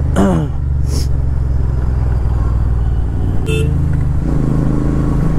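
Royal Enfield Continental GT 650's parallel-twin engine running steadily while riding on the road, with a short horn beep about three and a half seconds in.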